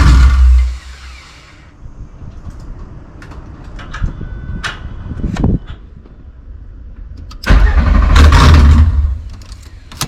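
VW Mk3's swapped VR6 engine cranking on the starter without catching, in two bursts: one that stops about half a second in, and a second of nearly two seconds near the end, with scattered clicks and knocks in between. It is a crank-no-start: the engine turns over but doesn't fire, which the owner puts down to the injectors, spark plugs or coil pack.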